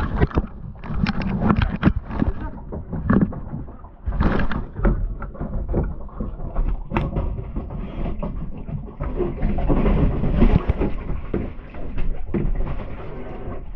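Kayak paddling: irregular splashes and knocks over a steady low rumble, with a longer stretch of splashing around the middle.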